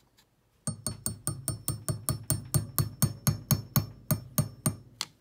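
Claw hammer tapping a steel key down into the keyway of a motor shaft, metal on metal. It is a quick, even run of about twenty-five sharp taps, roughly six a second, starting under a second in, each with a faint high ring.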